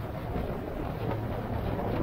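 A vehicle under way on a ride, its steady running noise mixed with wind rushing over the microphone.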